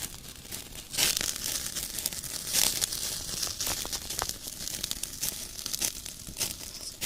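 Wood fire crackling as pork roasts over it: irregular sharp cracks and snaps over a steady hiss.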